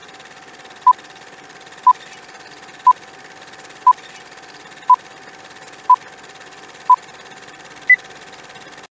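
Countdown timer sound effect: short electronic beeps once a second, seven at the same pitch, then a final higher beep about eight seconds in, over a faint steady hum and hiss.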